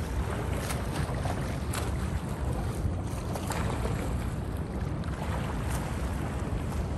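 Water splashing from a swimmer's strokes in a pool, a soft splash about every half second to a second, under heavy wind rumble on the microphone.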